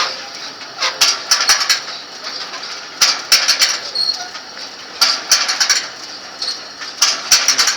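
Jean Tinguely's Heureka kinetic sculpture running, its scrap-metal linkages and wheels clanking and rattling in a cluster about every two seconds, with short high metallic squeaks between.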